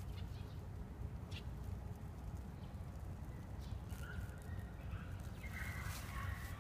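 Outdoor ambience: a steady low rumble with a few faint clicks, and from about four seconds in, steady high-pitched tones that grow stronger near the end.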